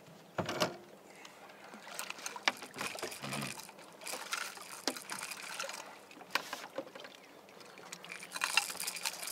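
Scattered knocks and clatter of fishing gear and the landing net against the boat as a hooked catfish is netted, with a low thump about three seconds in and a short burst of splashing water near the end.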